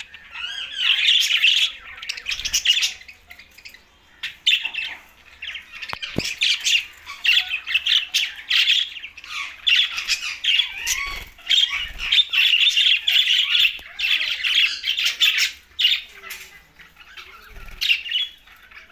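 Budgerigars chattering and squawking in rapid, overlapping bursts of warbling calls, with a few short gaps and a quieter stretch near the end.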